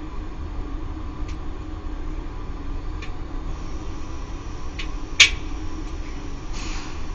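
Circulation pump of a Laddomat 21 wood-boiler charging unit running with a steady low hum. A few faint ticks sound over it, then one sharp click about five seconds in and a brief hiss near the end.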